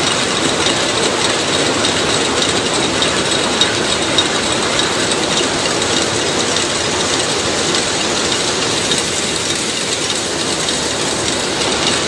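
Steady factory machinery noise: a dense, even mechanical clatter and hum with a faint high steady tone running through it.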